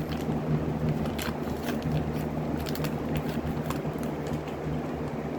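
Plastic packaging of a large squishy toy crackling and clicking a few times as it is handled and opened, over a steady low hum.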